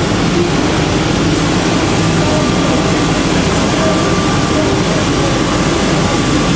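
Intorex CNC wood lathe running with its sanding drum working a shaped wooden chair leg: a steady, dense machine noise of motors and abrasion.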